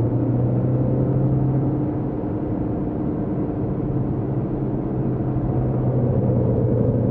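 Car engine running at speed with road and tyre noise, heard from inside the cabin; the engine note eases off about two seconds in and then builds again.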